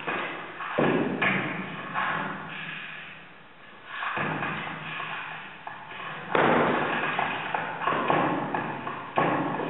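Flamenco footwork on glass floor panels: irregular stamps and thuds with long, echoing, electronically distorted tails from the processed foot sounds. The loudest hit comes about two-thirds of the way through, with another near the end.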